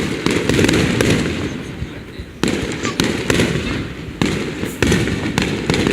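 Fireworks display shells bursting: a loud boom at the start, another about two and a half seconds in and two more around four to five seconds, each trailing off in a low rolling rumble, with crackling throughout.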